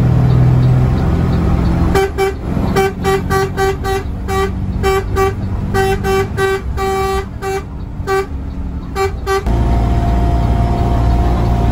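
Bus horn sounding a quick rhythmic string of about twenty toots, all on one pitch, mostly short with a few held longer, over the bus's engine and cabin drone; the toots stop about two seconds before the end, leaving the drone.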